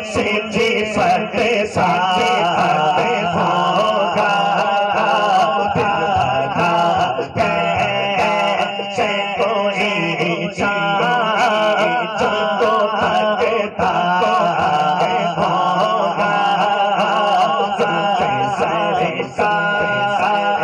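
A man singing devotional Urdu verse (a naat) solo into a hand-held microphone, unaccompanied, in long drawn-out phrases whose notes bend and waver in pitch, with only brief breaths between them.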